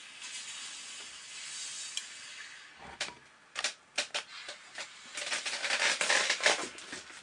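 Tefal steam iron being handled and stood upright on a workbench: a steady hiss fades out, then a handful of sharp clicks and knocks, then a couple of seconds of dense crackling noise.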